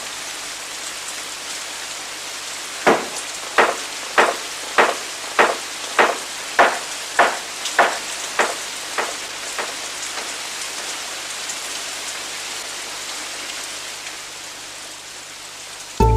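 Steady rain falling, with a creaking wheel squeaking at an even pace, about once every 0.6 seconds, a dozen times from about three seconds in until about ten seconds in.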